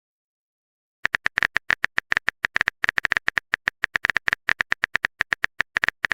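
Silence for about a second, then a quick, irregular run of keyboard typing clicks: a typing sound effect for a chat message being written.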